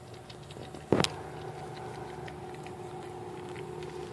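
Faint, scattered crunching clicks of a cat chewing a snake, over a steady low hum, with one sharp knock about a second in.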